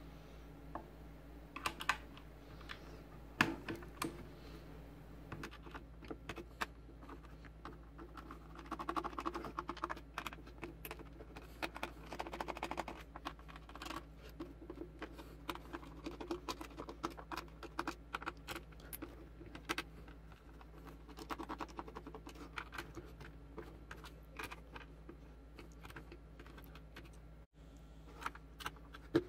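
Light, irregular clicks, taps and scrapes of a small precision screwdriver turning screws out of the plastic back of a Logitech Z200 speaker, with the plastic housing knocking and rubbing as it is handled.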